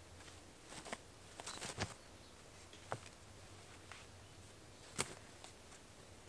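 Faint, scattered clicks and knocks from a tripod being set up on the ground, its legs adjusted and locked, with the sharpest knock about five seconds in.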